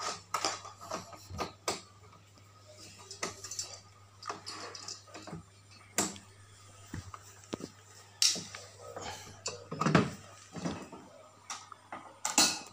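Scattered clicks and knocks of a metal bracket, screws and the plastic back casing of an LED TV being handled and screwed back on, a few sharper knocks standing out.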